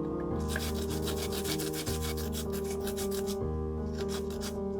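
Kencur (aromatic ginger) root being rubbed on a traditional wooden grater: a quick run of rasping strokes, with a short pause about three and a half seconds in before the strokes resume. Soft background music plays underneath.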